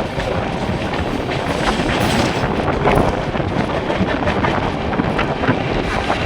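A train running on the rails: a steady rumble with a run of wheel clicks and clatter over the track.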